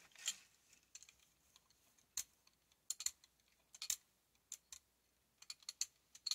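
Small rubber brayer rolling red paint across a gel printing plate: irregular sticky clicks and crackles, some in quick clusters, as the roller pulls through the tacky paint.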